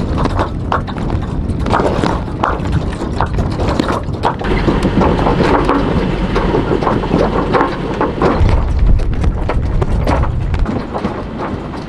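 Wind buffeting the microphone with irregular flapping and knocking from a sailboat's sails and rigging as the boat turns through the wind.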